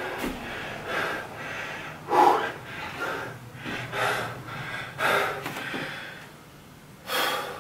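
A man breathing hard and gasping, out of breath after intense exercise: heavy breaths about once a second, with a loud exhale near the end.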